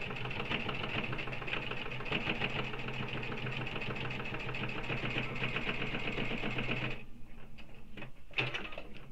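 Domestic electric sewing machine stitching a straight seam through several layers of bag fabric at a steady speed, its needle running with a rapid, even rhythm. It stops about seven seconds in, and a few light clicks follow.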